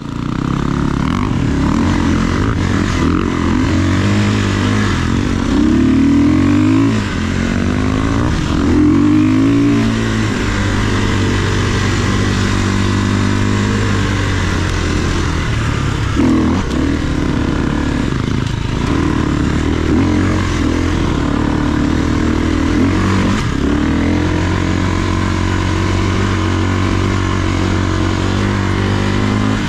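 KTM enduro dirt bike engine heard from on the bike while riding a trail, its pitch rising and falling again and again as the throttle is opened and closed.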